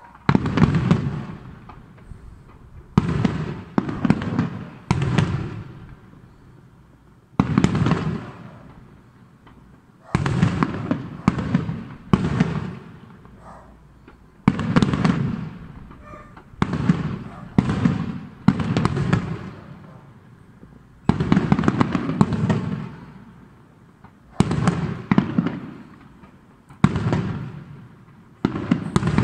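Aerial firework shells bursting: a steady string of loud bangs, one every second or two, each trailing off over about a second.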